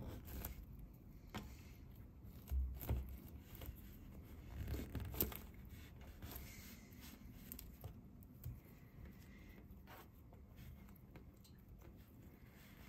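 Small soft plastic squishy toy figures handled close up: faint rubbing and squeezing, with scattered light taps and clicks as they are pressed together and set down on a tabletop. A few soft thumps come about three and five seconds in.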